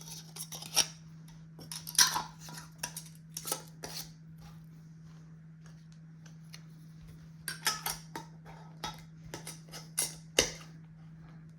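Glass jars of vegetables being sealed and handled: scattered clinks, clicks and knocks in two bunches, the loudest knock about ten seconds in, over a steady low hum.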